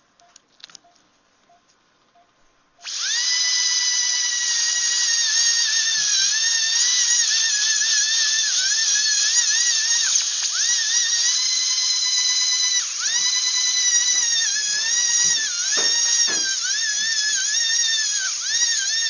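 High-speed veterinary dental drill whining at a steady high pitch, starting about three seconds in. Its pitch dips briefly again and again as the bur is pressed into the jawbone, drilling out the bone around the root of a dog's canine tooth to loosen it for extraction.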